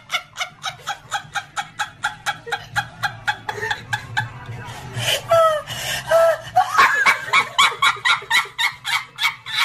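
A woman laughing hard in quick repeated bursts, about three or four a second, with a few high squealing notes midway.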